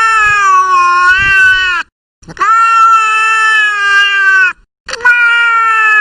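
Domestic cat meowing: three long, drawn-out meows of about two seconds each, the first already under way. Each meow holds a steady pitch and then falls at the end, with short pauses between them.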